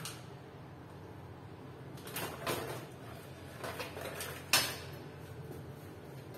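A motherboard with its CPU cooler being tilted up and lifted out of a metal desktop PC case, scraping and knocking against the case, with one sharp knock a little past halfway.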